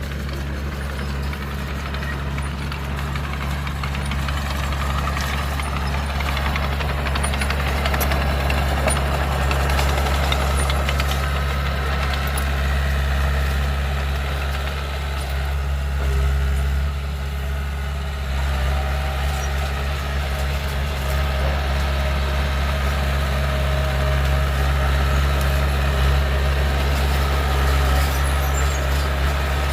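Heavy diesel engine of earthmoving equipment running steadily with a low, even drone that swells and eases slightly in loudness.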